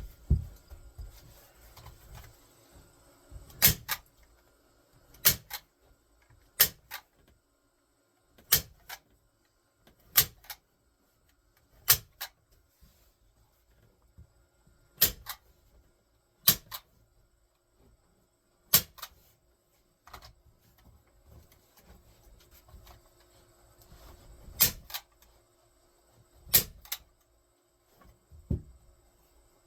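Staple gun fired over and over, each shot a sharp double snap, about one every one and a half to two seconds, with a pause of several seconds past the middle.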